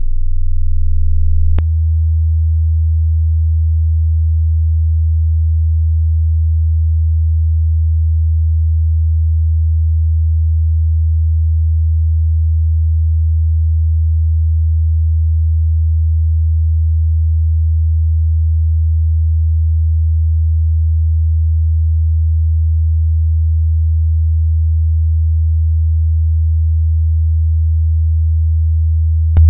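A steady, deep electronic sine tone held at one low pitch. About a second and a half in, a faint click cuts off the fainter higher overtones, leaving the plain low tone sounding on unchanged.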